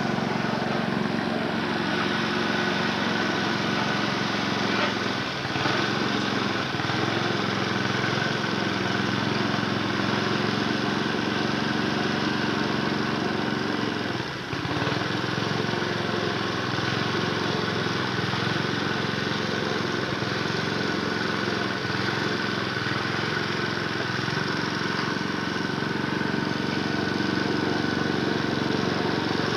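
A small engine running steadily at a constant speed, with a brief dip in level about 14 seconds in.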